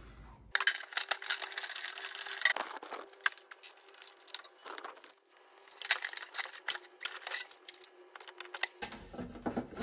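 Scattered clicks, taps and light metallic rattles of hands handling the thin exhaust heat shield and the NOx sensor's wiring plug under the van, over a faint steady hum.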